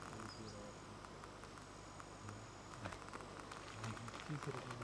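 Faint outdoor background of quiet, steady high-pitched insect buzzing over a low hiss, with faint distant voices starting near the end.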